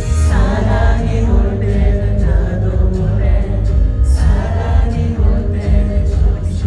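Male vocalist singing a song live over band accompaniment through venue loudspeakers, with heavy bass; the voice comes in about a third of a second in.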